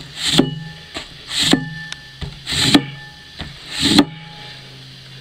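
Steel broad axe blade stropped across a sheet of cardboard to finish its edge after sharpening: four scraping strokes about a second apart, each swelling and ending sharply, the last about four seconds in.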